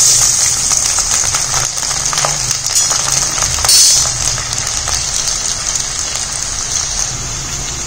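Peeled garlic cloves frying in hot oil in a stainless steel kadai: a loud, steady sizzle with scattered crackles, starting as the cloves go in and easing off slightly toward the end.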